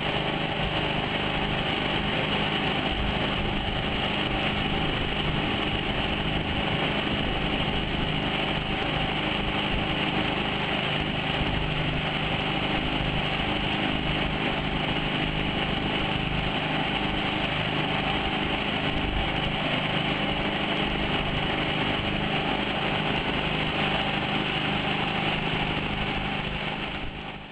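Homemade mud motor (surface-drive outboard) engine running steadily at constant speed, cutting away sharply right at the end.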